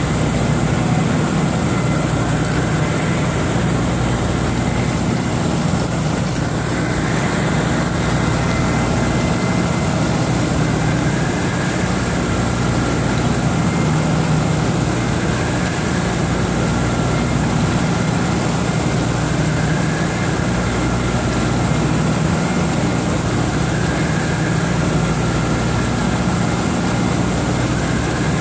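Skoda W 200 HB CNC ram-type floor boring mill face-milling steel: a steady low machine hum under a continuous hiss of cutting and coolant spray, unchanging throughout.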